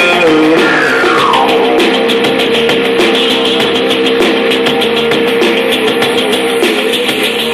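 Rock music with guitar and drums playing loudly through a small 2.1 Bluetooth party speaker system, with a short falling pitch glide about a second in.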